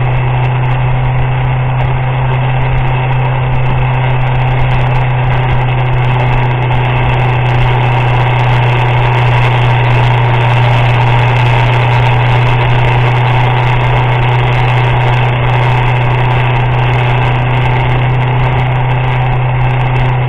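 Motorcycle engine running steadily under way: a constant, unchanging drone with no revving up or down.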